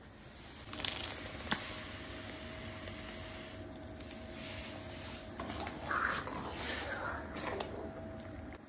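A metal ladle clicks sharply against the rim of a metal cooking pot twice, then stirs thick hot milk, with irregular sloshing and scraping from about halfway through to near the end.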